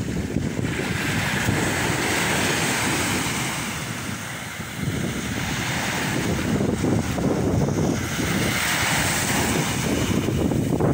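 Sea waves washing ashore, the surf noise swelling and easing, with wind buffeting the microphone.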